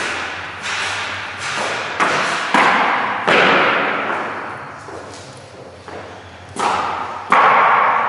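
Irregular series of sharp thuds, about eight, each trailing off over half a second to a second, with a lull in the middle, from subfloor installation work.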